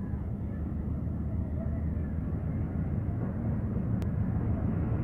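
Train approaching: a steady low rumble that grows slowly louder.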